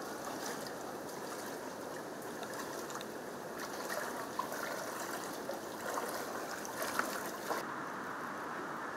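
Floodwater rushing steadily, with small splashes through the middle as people wade through it.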